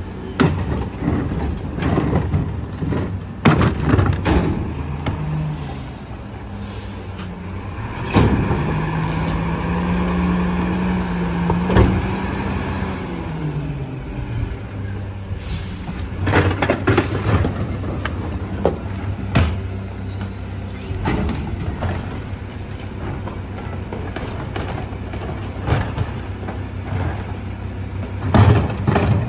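A split-body rear-loader garbage truck's diesel engine idles, then speeds up for about five seconds while its hydraulics work and settles back to idle. Repeated sharp bangs and knocks come from plastic trash carts hitting the cart tippers and hopper as they are dumped.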